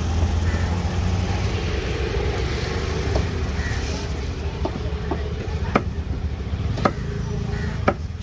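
Heavy fish knife chopping tuna flesh on a wooden tree-trunk block: scattered sharp knocks that get louder in the second half, the loudest three about a second apart. Under them runs a steady low engine hum.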